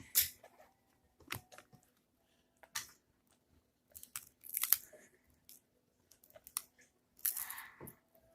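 Crisp wafers being bitten and chewed: irregular crackly crunches at uneven intervals, with the loudest ones right at the start, about four and a half seconds in, and near the end.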